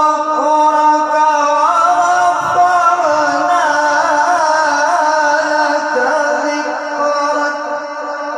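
A man's voice in melodic Quran recitation (tilawat), drawing out one long held note that wavers through ornamented turns in the middle, amplified through a microphone and loudspeaker system.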